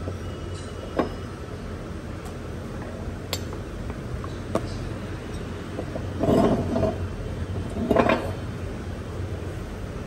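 Metal engine parts clinking and knocking on a steel workbench as an air-cooled cylinder block is wiped and handled: a few light clicks, then two louder clattering knocks about six and eight seconds in, over a steady low hum.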